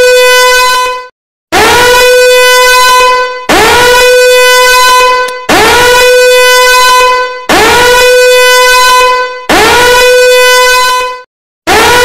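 Danger alarm horn sounding in repeated blasts about every two seconds. Each blast swoops quickly up in pitch, then holds one steady tone for about a second and a half before the next.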